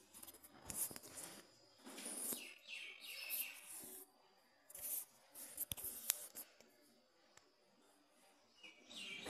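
Faint rustling and handling noise in several short bursts, with a few sharp clicks, as a phone camera is moved over the pages of a textbook. Birds chirp in the background, briefly around the middle and again near the end.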